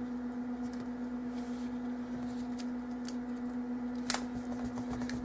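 Faint handling sounds of cardstock being pressed down and adjusted by hand: a few light taps and one sharper click about four seconds in. A steady electrical hum runs underneath.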